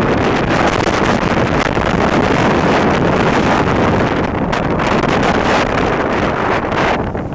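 Storm-force wind buffeting the microphone: a loud, steady rush of gusting noise with no let-up.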